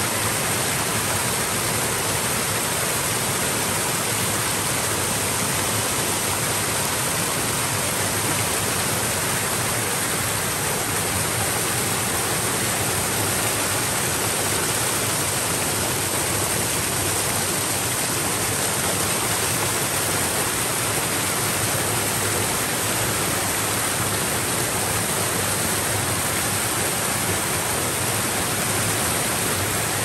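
Mountain waterfall: falling water making a steady, even rush with no breaks.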